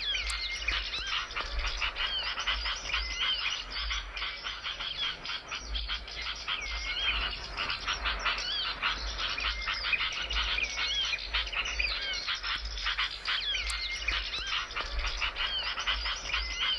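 Small songbirds chirping and twittering densely and without pause, many quick hooked and gliding notes overlapping one another.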